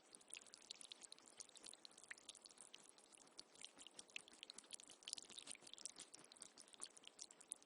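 Faint running water trickling and splashing, with many small irregular crackles and drips over a steady hiss.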